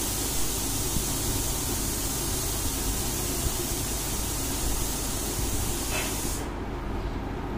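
Steady loud hiss over a low rumble, with no clear events in it. The high hiss cuts off abruptly about six and a half seconds in.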